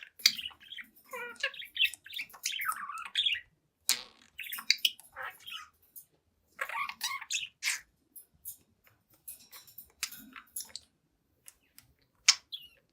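Young budgerigar chattering and warbling: quick chirps, squawks and burbled notes in close runs, thinning out to scattered calls with longer gaps in the second half.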